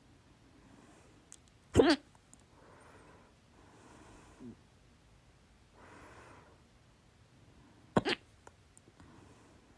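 A woman's loud hiccups: two sharp hiccups about six seconds apart, each a quick double jolt, with quiet breathing in between.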